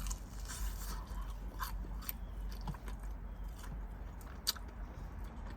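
A person chewing and biting into fried chicken wings, with scattered sharp crunches and mouth clicks, the sharpest about four and a half seconds in.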